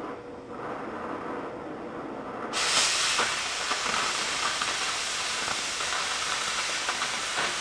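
Oxyacetylene cutting torch: the preheat flame hisses quietly, then about two and a half seconds in the cutting oxygen comes on and a loud steady hiss of the oxygen jet runs as it cuts through steel plate, with a few small crackles.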